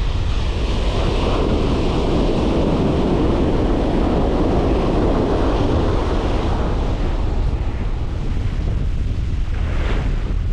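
Wind buffeting the microphone over ocean surf breaking on the beach, with a wave's wash swelling through the first part and easing off after it.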